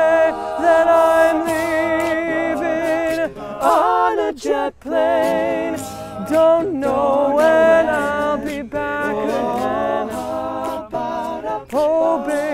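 All-male a cappella group singing in close harmony, a lead voice over backing voices, with a brief break about four and a half seconds in.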